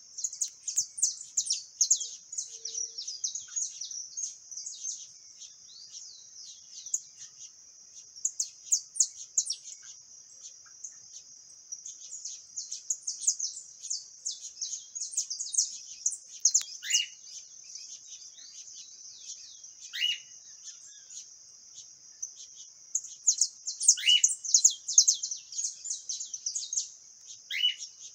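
Saffron finches (canário-da-terra) chirping, with many quick, high chirps in dense bursts over a steady, high insect buzz. A few lower whistles slide downward in the second half.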